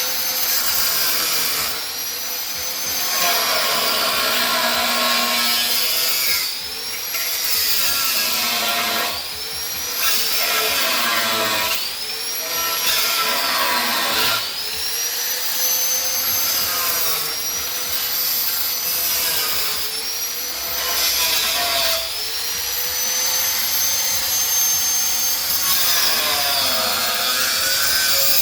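Hand-held electric power tool, most likely an angle grinder, working the metal of a Vespa body. Its motor whine repeatedly sags under load and climbs back up, every couple of seconds.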